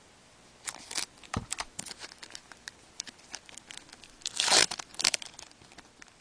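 A hockey card pack's wrapper being torn open and crinkled, in scattered crackles with one louder, longer rip about four and a half seconds in.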